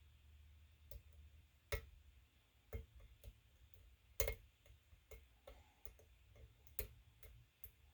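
Pin tumbler lock being picked: a scattering of sharp clicks, about ten at uneven intervals, as pins in the back of the lock set under the pick and tension, before they all drop.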